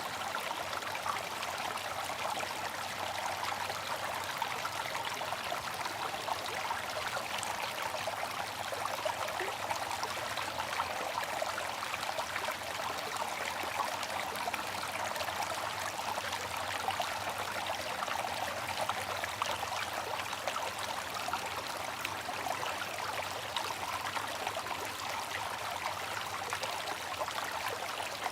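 Bamboo water fountain running, its water trickling steadily without a break.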